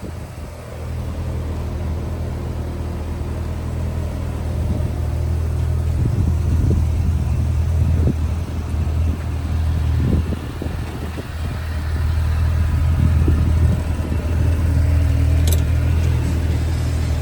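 Kawasaki Ridge XR side-by-side's 999 cc inline-four engine running steadily, with the revs swelling up and easing back a couple of times.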